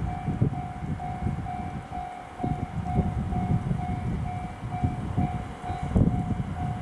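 JR East 701 series electric train rumbling as it pulls slowly into the station. Over it, an electronic level-crossing warning bell rings steadily, about twice a second.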